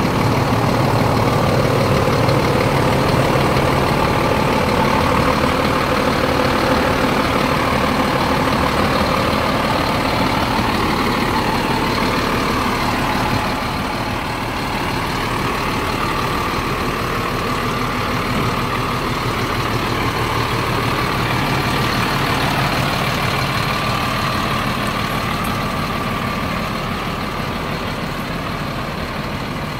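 Scania G400 tipper's 13-litre six-cylinder diesel engine idling steadily, a little quieter from about halfway through.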